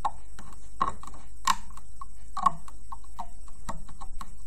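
Loom hook clicking and tapping against the plastic pegs of a band loom as elastic loom bands are looped up, in irregular small clicks with a quick flurry near the end.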